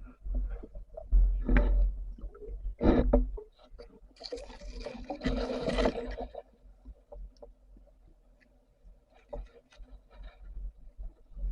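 Water sloshing and bubbling around a diving camera, with several dull knocks about 1 to 3 seconds in and a hissing rush of water or bubbles a few seconds later.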